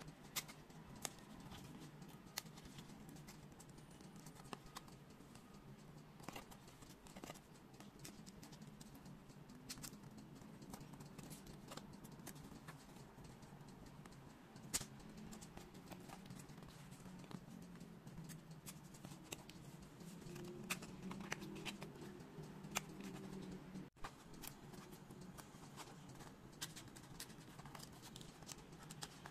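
Faint handling noise of foam-board 3D puzzle pieces: scattered light clicks and scratches as pieces are pressed out of their sheets and handled with tweezers, over a low steady hum.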